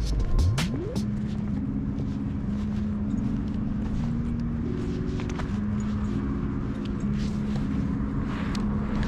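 City street traffic noise, with cars going by. Soft background music plays under it: slow, held low notes that change pitch every second or so.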